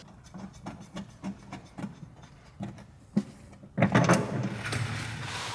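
Faint clicks and light metal handling as a nut is worked by hand onto the top mount of a coilover strut, followed by louder handling noise from about four seconds in.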